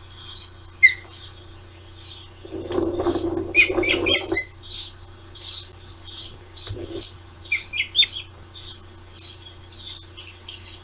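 Ospreys chirping at the nest: a steady run of short, high chirps, about one and a half a second. A louder burst of rustling noise comes a few seconds in.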